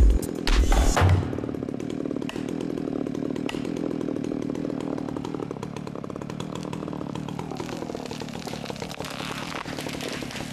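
Chainsaw engine running steadily, its pitch dipping and rising slightly partway through, after about a second of loud low thumps at the start.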